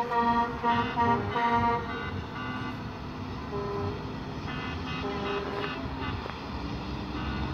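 Truck horns honking: a quick run of short toots, about three a second, for the first two seconds. After that come a few fainter single horn blasts over a steady low rumble of traffic.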